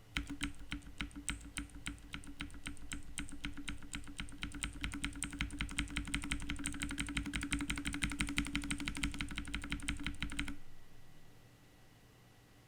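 Rapid, continuous typing on a K550 TKL mechanical keyboard with clicky blue switches, lubed with Krytox 205g0; it stops near the end.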